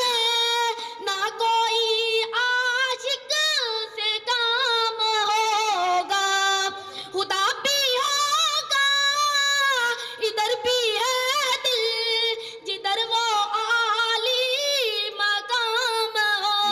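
A high solo voice sings a naat unaccompanied, gliding and holding long ornamented notes with brief breaths between phrases; no instruments.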